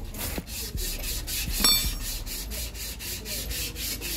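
Fast, even rubbing or scraping, about six or seven strokes a second, with a single metallic clink about one and a half seconds in.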